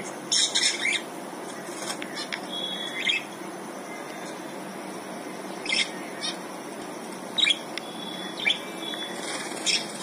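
Short, scattered calls from small cage birds, zebra finches among them. There is a quick run of calls in the first second, then single short calls every second or two, over steady background noise.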